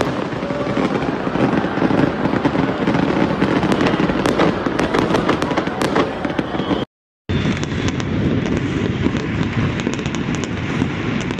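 Fireworks display: a continuous din of bangs and crackling from many shells bursting at once. The sound cuts out for a moment about seven seconds in, then resumes as a duller stretch of popping and crackling fireworks.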